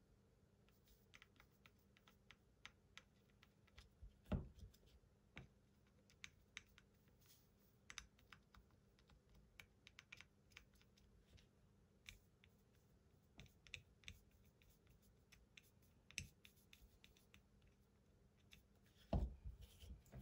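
Faint, scattered small clicks and taps of hand soldering: the soldering iron tip touching the pins of a chip on a circuit board as the board is handled. Two louder knocks stand out, about four seconds in and near the end.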